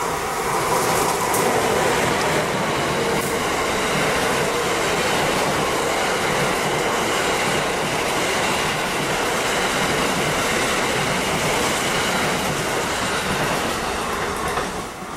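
Amtrak passenger train of stainless-steel Amfleet coaches running through a station at speed: steady wheel-on-rail noise with a few sharp clicks. It builds about a second in and falls away near the end as the last car passes.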